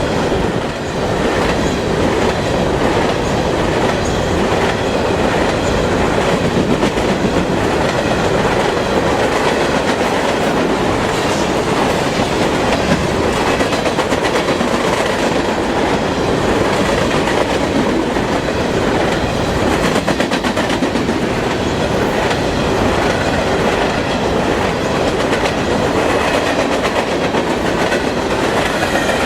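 CSX freight train cars rolling past close by: a steady loud rumble of wheels on rail, with the clickety-clack of wheels crossing rail joints.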